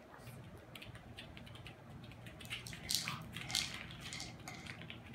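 Small dog crunching dry kibble and nudging a plastic treat-dispensing wobbler toy: a run of small crunches and clicks, with a few louder knocks about three seconds in.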